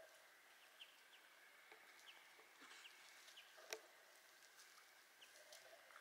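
Near silence: a faint outdoor background with a steady high hum and scattered short, high chirps, and a single sharp click a little past halfway.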